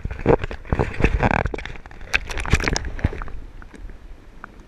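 Water splashing and sloshing against a camera held at the surface as a released fish swims off, with a dense run of sharp clicks and knocks for about three seconds. The camera then goes under and the sound drops to a quieter, duller wash.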